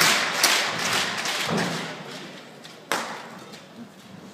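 Badminton racket hitting the shuttlecock during a rally, each sharp hit ringing on in a large hall: two hits about half a second apart at the start and another about three seconds in.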